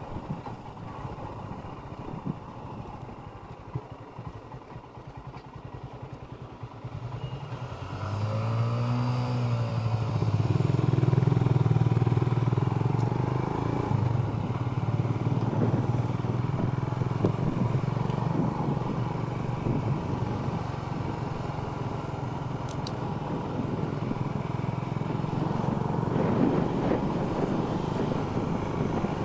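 Royal Enfield Himalayan's single-cylinder engine running under way on the road, with wind noise. About 8 s in the engine pitch rises and falls, and from about 10 s on the engine runs louder and steady.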